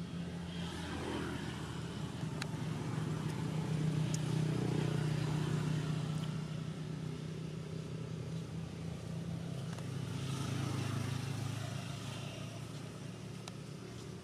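Motor vehicle engines passing, a low steady hum that swells about four seconds in and again about ten seconds in.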